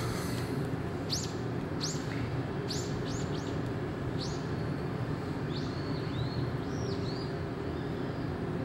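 Small bird chirping: a run of short high chirps, most sweeping down in pitch, about one or two a second, stopping about seven seconds in. Under it runs a steady low rumble.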